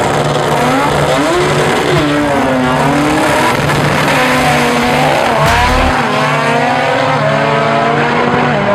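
Drag race car engine revving hard and launching down the strip, its pitch swinging up and down and then climbing steadily near the end.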